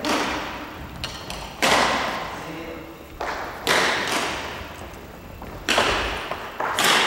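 Badminton rackets striking a shuttlecock: five sharp smacks about every two seconds, each ringing on in the echoing gym hall, with lighter clicks and taps between them.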